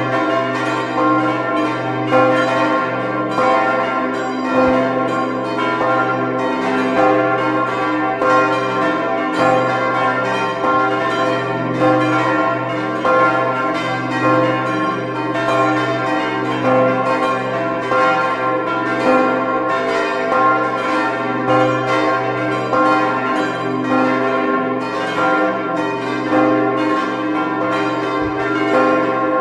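Church bells in a tower ringing together in a continuous peal: overlapping strikes come a few times a second over a lingering low hum.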